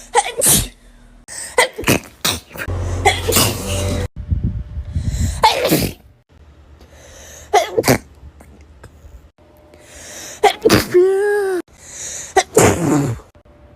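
A run of human sneezes, about eight short, sudden bursts, some close together in pairs. The background changes abruptly between some of them, and one sneeze about two-thirds through trails off into a falling voiced 'ah'.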